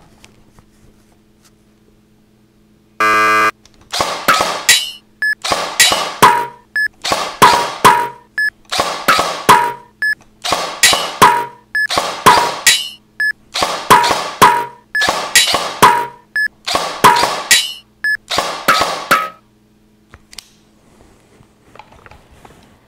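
XTAC shooting-target game: a loud electronic start beep, then about twenty sharp shots and hits in quick succession over some fifteen seconds. Each has a ringing, steel-plate-like tail, and short beeps come between them as the next targets activate.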